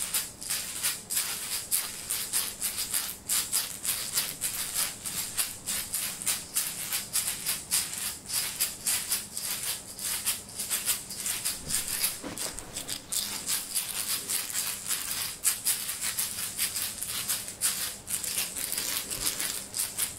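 Handheld rattle shaken in a quick, even rhythm, about three shakes a second, a dry bright rattling.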